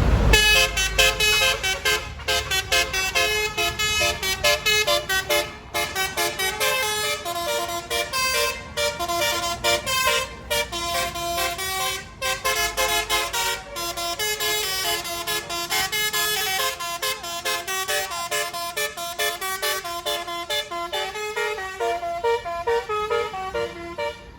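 Bus 'telolet basuri' musical horn playing a quick melody, a run of pitched notes stepping up and down with a few short breaks.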